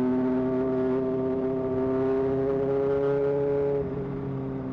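Honda CBR 600 motorcycle's inline-four engine running at a steady cruise, its pitch creeping slightly higher, then easing off briefly about four seconds in.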